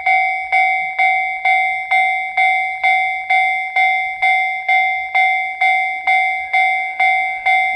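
Japanese railway level-crossing alarm ringing its 'kan-kan' warning, a steady beat of a little over two strikes a second, signalling that a train is approaching.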